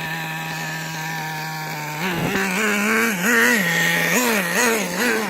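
Small nitro RC car engine idling at a steady pitch, then revved in several quick blips from about two seconds in, its pitch rising and falling with each.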